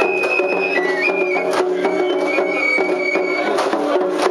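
Japanese festival hayashi music: a bamboo flute plays long, high held notes that step between pitches over a dense lower backing. A couple of sharp strikes come through, one about a second and a half in and another at the end.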